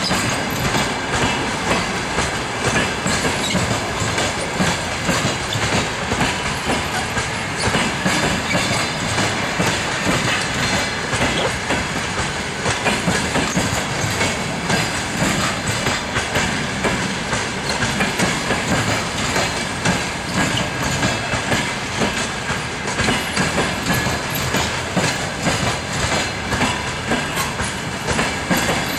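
Passenger coaches of a long-distance train rolling past, their wheels clacking over the rail joints again and again.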